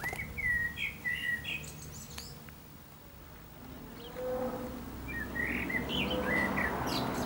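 Small songbirds singing in short chirping phrases, once in the first second or two and again in the second half. From about four seconds in, a rushing noise builds up under the song.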